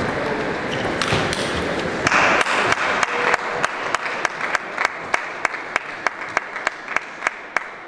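A table tennis point ends with a short loud burst of cheering from the hall. Then comes a steady run of sharp taps from a table tennis ball being bounced, about five a second and slowly fading.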